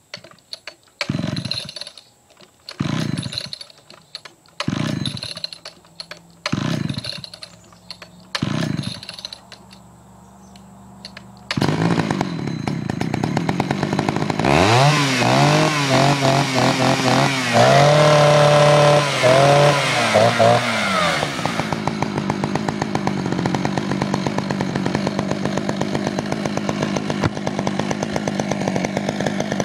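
Poulan 4200 two-stroke chainsaw being pull-started: five pulls of the starter cord about two seconds apart, then the engine catches about a third of the way in. It is revved up and down several times and then settles into a steady idle.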